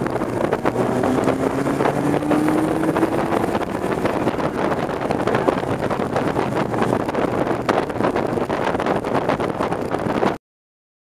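Kei car's 660 cc engine heard from inside the cabin at racing speed, with wind and road noise. Its pitch rises steadily for a few seconds as the car accelerates through a gear, then holds. The sound cuts off abruptly near the end.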